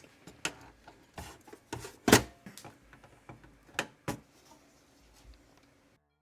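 Sharp plastic clicks and knocks of cables and connectors being handled and plugged back in inside a desktop PC case. There are a handful of irregular clicks, the loudest about two seconds in.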